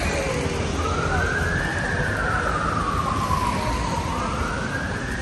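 Emergency vehicle siren wailing, starting about a second in and sweeping slowly up and down in pitch, about three seconds per rise and fall, over steady city street noise.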